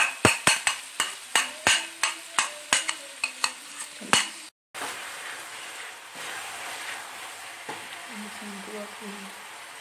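A metal spoon tapping and scraping against a ceramic bowl to get ketchup out, sharp clicks about three a second for the first four seconds or so. After a brief cut, vegetables and chicken sizzle softly and steadily in the pot.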